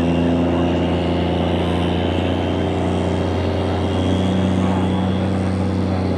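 Turbocharged diesel pickup truck engine held at high revs under full load while pulling a weight sled, running steadily with a thin high turbo whine over it. The pitch steps up slightly about four seconds in.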